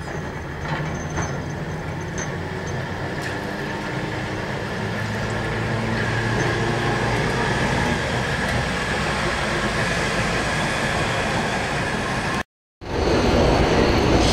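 Double-deck heritage electric tram approaching and passing on street track, its traction motors humming and wheels running on the rails, growing steadily louder, with a thin high whine joining about halfway through. Near the end the sound breaks off for a moment and comes back as the louder, rushing running noise heard aboard a moving tram.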